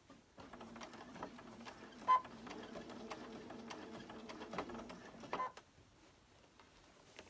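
Electric sewing machine stitching through layered fabric ruffles at a steady speed, a running hum that stops about five and a half seconds in. Two sharp clicks with a brief ring sound over it, about two seconds in and again just before it stops.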